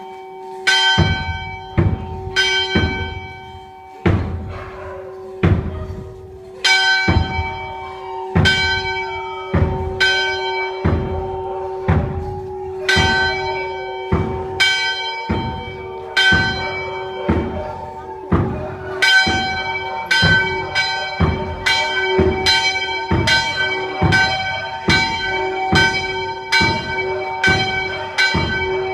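Church bells ringing, one stroke about every second, the strokes coming faster in the last third, each stroke's tone ringing on into the next.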